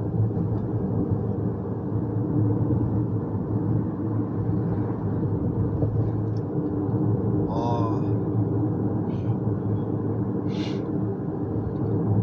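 Steady road rumble and low engine drone inside a moving car's cabin. A brief high, voice-like sound comes about eight seconds in, and a short hiss about two and a half seconds later.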